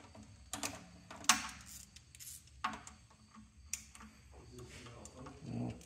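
Scattered, irregular metallic clicks and clinks of a crow's foot line wrench being worked on a fuel line fitting on a diesel engine, over a faint steady hum.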